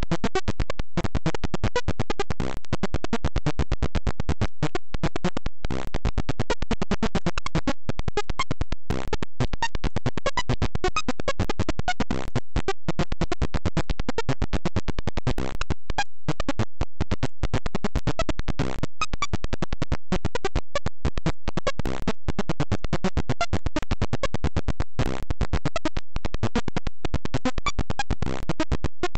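Apple II speaker buzzing as a rapid train of clicks while the computer plots the figure line by line, with a brief break about every three seconds as each new line starts.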